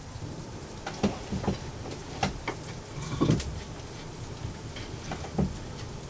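Wet snow falling and dripping, a steady hiss with scattered irregular taps and drops. A few louder knocks come about a second in, around three seconds in and near the end.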